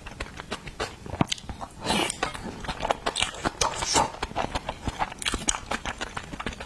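Close-miked chewing and biting of seafood: many quick wet clicks and crunches, several a second.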